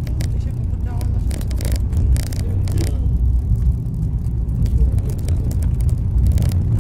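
Steady low engine and road rumble heard from inside a moving vehicle's cab, with frequent short rattles and knocks as it drives over a rough road.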